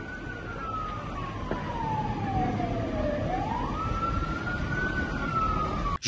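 Emergency vehicle siren in a slow wail: its pitch falls over about three seconds, rises again quickly, then begins to fall near the end, over a steady background of noise.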